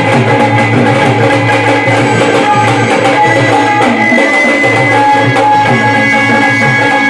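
Instrumental passage of a Marathi gondhal devotional song: hand drums playing a steady rhythm under long held melody notes, without singing.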